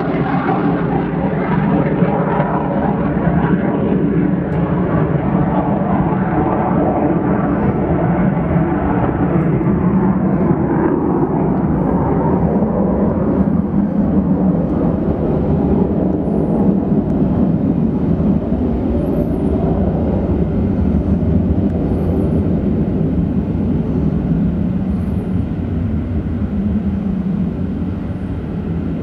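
Jet aircraft engines with a loud, steady roar. The treble dulls over the first ten seconds or so.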